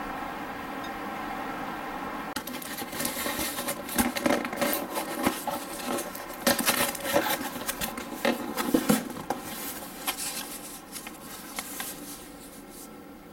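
A cardboard box being opened by hand: its flaps and paper lining are pulled and handled in a quick run of crackles, scrapes and taps. These start about two seconds in and ease off near the end, over a steady hum.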